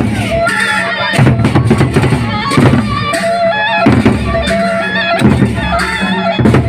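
Gendang beleq ensemble playing: big drums beat a steady pulse, a strong stroke about every second and a half, under a melody that steps between held notes.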